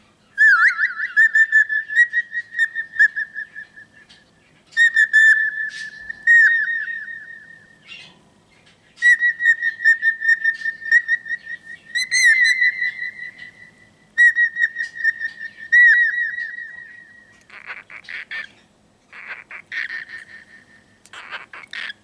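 Cockatiel whistling long warbling phrases held around one pitch, in four runs of a few seconds each with short breaks; it is probably a mix of several learned tunes. In the last few seconds it switches to short, choppy chattering calls.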